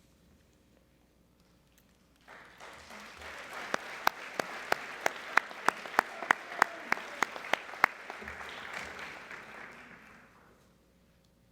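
Audience applause that starts about two seconds in and dies away near the end. Over it, one nearby pair of hands claps loudly and evenly, about three claps a second.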